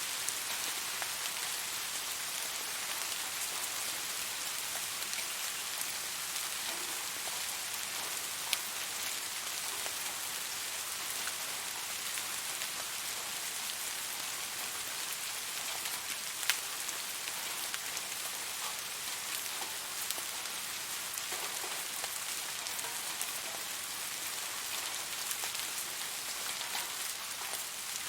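Steady rain falling, an even hiss with scattered individual drops ticking close by; one drop at about 8 seconds and another at about 16 seconds stand out.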